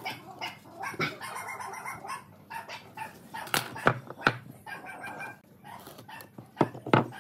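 Pine blocks and a metal speed square set down on a wooden tabletop: three sharp knocks a little past the middle and two more near the end. An animal calls on and off in the background.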